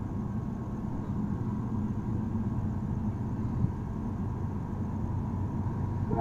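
Approaching diesel freight locomotive rumbling with a steady low engine hum, growing a little louder toward the end, with one short knock about three and a half seconds in.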